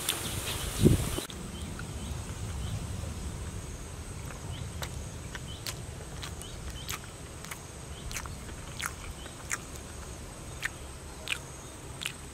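Close mouth sounds of a person chewing food: short wet smacks and clicks about once a second, louder in the first second, over a faint steady high tone in the background.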